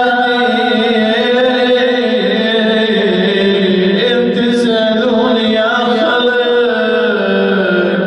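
A voice chanting in long held, slowly gliding melodic lines with a wavering ornamented pitch, typical of a sung religious recitation or lament.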